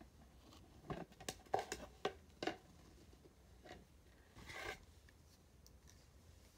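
Handling noises from the magnifying lamp's parts being fitted together: several light clicks and knocks in the first half, then a brief scrape about four and a half seconds in.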